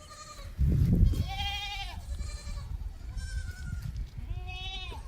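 Goat kid bleating: one long, high bleat about a second in, a fainter short one around the middle, and another near the end. Just before the first bleat comes a low rumbling bump on the microphone, the loudest sound here.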